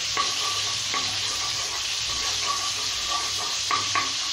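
Butter and refined oil sizzling in a hot non-stick kadai, bubbling with a steady hiss as the butter melts in. A wooden spatula stirs and scrapes the pan, with a couple of sharper scrapes near the end.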